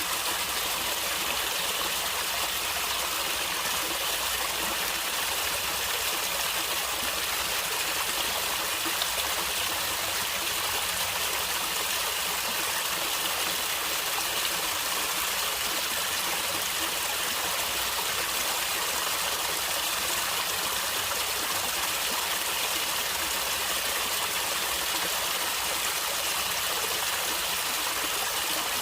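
A stream of water running and gurgling steadily, an even rushing hiss without breaks.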